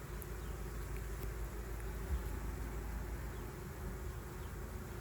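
Honeybees buzzing as returning foragers fly in and land at a hive entrance, a steady hum.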